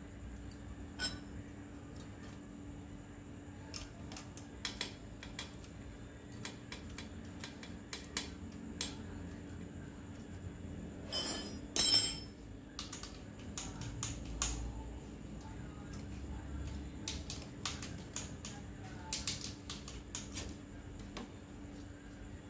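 Small metallic clicks and clinks of hand tools working on a bicycle's rear derailleur, with two louder metal clacks about halfway through, over a faint steady hum.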